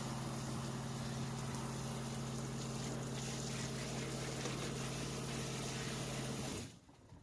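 The van's water pump humming steadily while water runs from the tap, then cutting off suddenly near the end.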